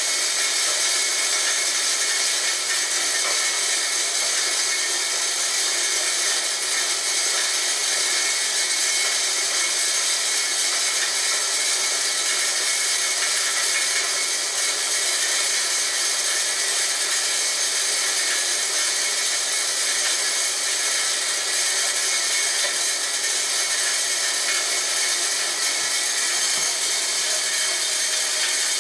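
Homemade corn grinder built from a water pump, running steadily with a loud, even grinding noise as it mills corn.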